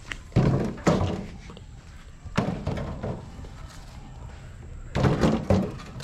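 Whole coconuts tossed one after another into a metal wheelbarrow, landing with heavy thunks, about five in all.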